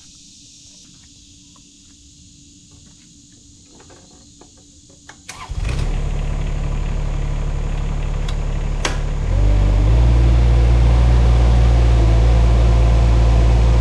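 Shantui mini excavator's engine starting about five seconds in after a few faint clicks, then running steadily, and throttled up louder about four seconds later.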